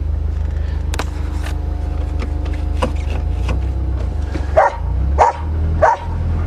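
Low steady drone of a turbocharged Volvo's engine, heard from inside the cabin, with a dog barking three times near the end.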